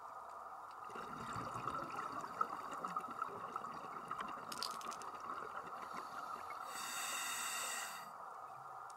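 Underwater sound picked up by a diver's camera: a steady hum with scattered crackling clicks, then a rush of bubbling hiss lasting just over a second about seven seconds in, like a scuba diver's exhaled bubbles.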